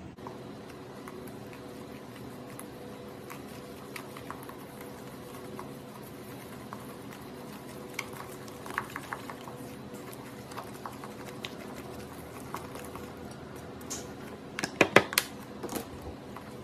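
Spatula scraping and tapping in a stainless steel bowl as powdered sugar is stirred into softened butter, with small irregular clicks over a steady hum. A burst of louder knocks against the bowl comes near the end.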